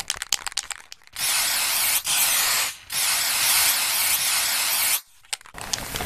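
Aerosol spray-paint can: a quick rattle of clicks, as when the can is shaken, then three long spray hisses with short breaks between them, the last about two seconds long, and a few more clicks near the end.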